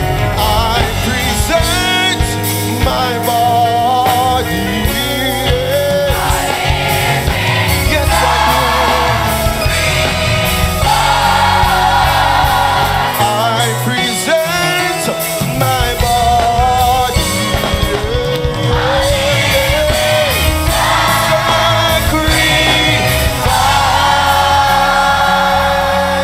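Gospel choir singing, backed by a live band with drums.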